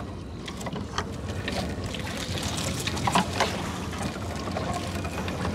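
Gill net being hauled over the side of a small boat: water trickling off the net, with a few light knocks and clicks, over a steady low hum.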